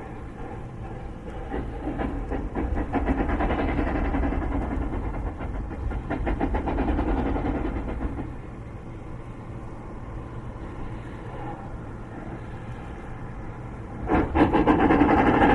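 Narrow gauge steam locomotives, a T class and a 400 class Garratt double-heading a loaded ore train, working hard up a 1 in 60 grade with rapid chuffing exhaust beats and steam hiss. The exhaust swells about two seconds in, eases off around eight seconds, then rises sharply louder near the end.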